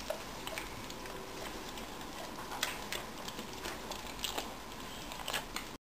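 Quiet room noise with scattered faint clicks and ticks, cutting off abruptly to silence near the end.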